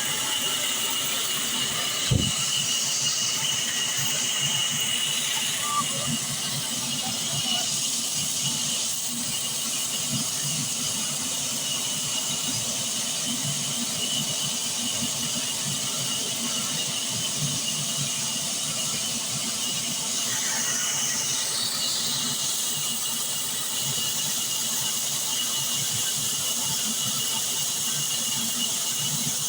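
A machine running steadily: an even hiss with a constant high whine over a low rumble, and one sharp knock about two seconds in.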